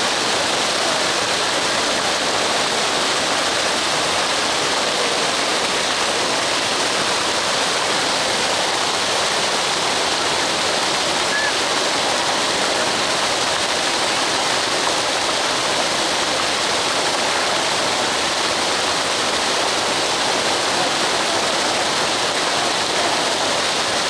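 Water fountain jets spraying and splashing back down: a steady, even rush of falling water.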